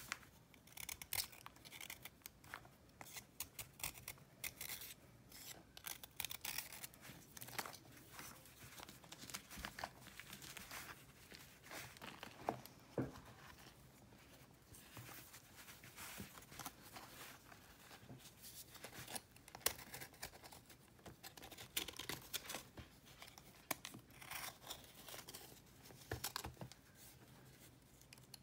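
Snap-off utility-knife blade shaving a block of chalky compressed powder in many quick scraping strokes, with crumbs crunching and crumbling off the block.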